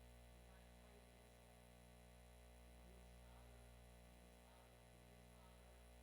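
Near silence: a steady low electrical hum, with only faint, indistinct traces of sound above it.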